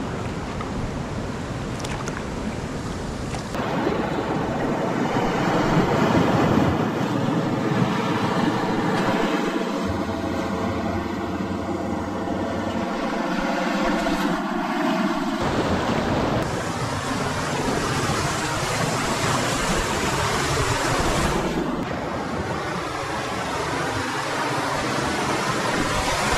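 Whitewater rapids rushing around an inflatable kayak as it runs down a rocky drop: a dense, steady noise of churning water, with wind on the microphone. It gets louder a few seconds in.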